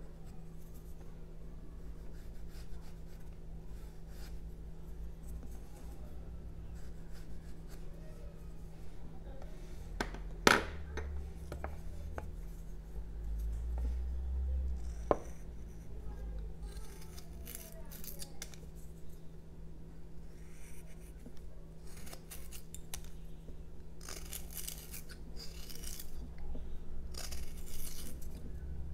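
Carving knife cutting into a block of jelutong, short scraping slicing strokes that come thick and fast in the second half. A sharp knock about ten seconds in, and a low steady hum underneath.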